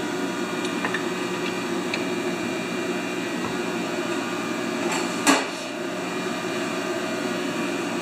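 AC stick welder humming steadily at idle, switched on and ready to strike an arc. One sharp metallic knock sounds about five seconds in, with a couple of faint ticks early on.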